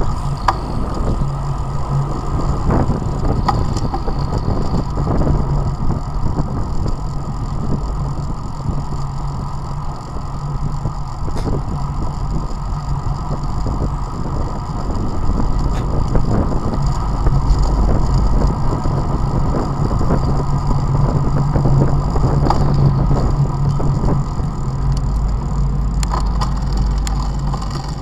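Steady wind rush and tyre rumble from a bicycle rolling along asphalt at about 25 km/h, heard through an action camera's microphone on the moving bike.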